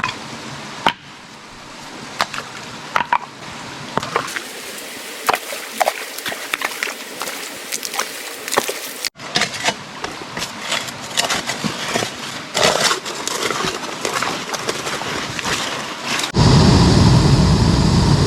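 Gravel being dug and worked in a shallow streambed: stones clinking and scraping in quick irregular knocks, with water sloshing. Near the end a loud, steady low rushing noise takes over.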